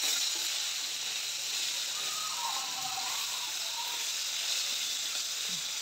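Boiled jackfruit pieces frying in hot mustard oil in a kadhai: a steady sizzle.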